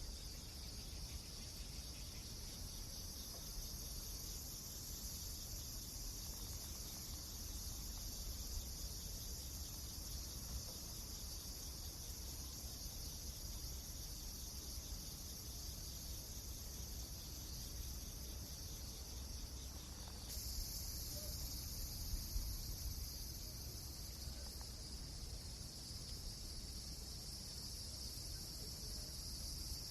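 Steady high-pitched chirring over a low rumble, with only faint scattered ticks. About two-thirds of the way through, the high band shifts abruptly, as at a cut in the recording.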